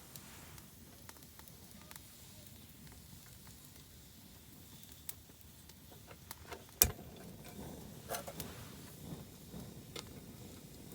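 Camp gear being handled to make coffee: scattered small clicks and knocks over a quiet background, with one sharp knock about seven seconds in.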